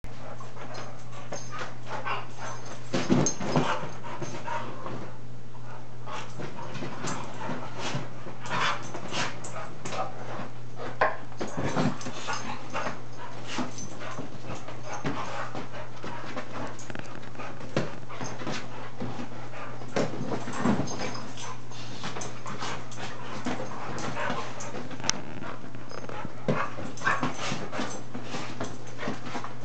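Dog whimpering and panting, with an occasional short yip, at irregular intervals over a steady low hum.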